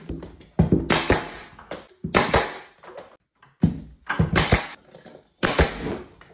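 Pneumatic finish nailer firing nails into crown molding: four quick bursts, each a sharp "juh-kunk" of the shot with a hiss of exhaust air, about one and a half seconds apart.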